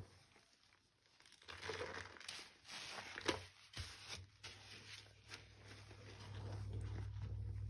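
Wet squishing and crackling of a foamy, lathered lump of recycled powder being squeezed and kneaded by a gloved hand in soapy water, in a run of irregular squelches. A low steady hum sets in about six seconds in.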